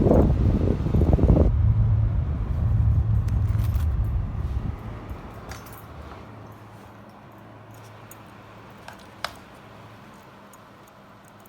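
Pedestal fan's airflow buffeting the microphone as a low, gusty rumble that fades away over several seconds, with a single sharp click near the end.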